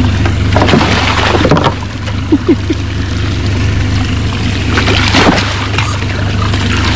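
A hooked fish splashing and thrashing at the surface beside a boat, in two bursts, about a second in and about five seconds in, over the steady low hum of the boat's idling motor. Two short squeaks sound about two and a half seconds in.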